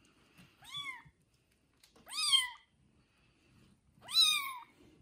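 A newborn kitten mewing: three short, high-pitched mews about two seconds apart, each rising then falling in pitch, the first one fainter.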